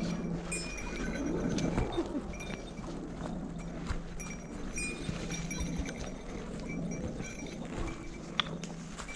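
A small bell jingling in irregular shakes as walkers step downhill, over footsteps scuffing and crunching through dry leaf litter.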